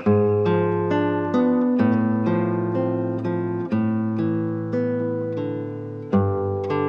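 Background music: an acoustic guitar picking a slow, steady run of notes over changing chords.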